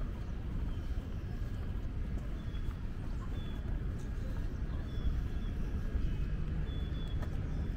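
Steady low outdoor rumble, with a few faint, short, high chirps now and then.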